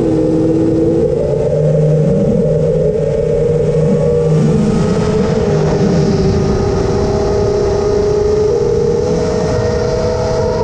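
Quadcopter motors and propellers whining steadily, several tones shifting up and down in pitch as the throttle changes, over a low rush of wind.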